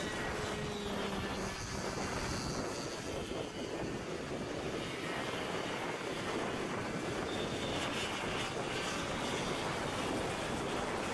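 Racing karts' two-stroke engines running around the circuit, a steady mixed buzz heard from trackside, with wind noise on the microphone.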